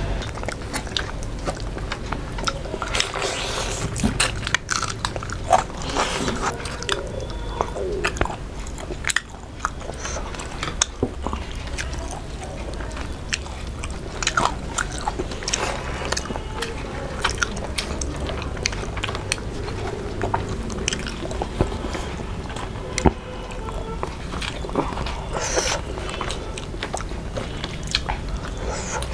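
Two people eating rice and fish with their hands: chewing and biting, with many short sharp clicks and occasional crunches.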